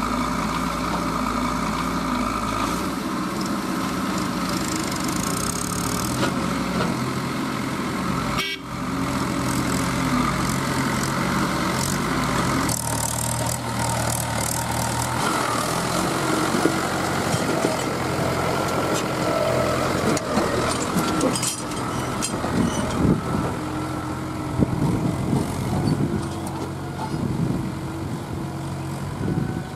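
Diesel engines of a CAT backhoe loader and a Mahindra tractor running. Later the Mahindra tractor pulls a mud-loaded trolley across rough ground, with scattered knocks and rattles.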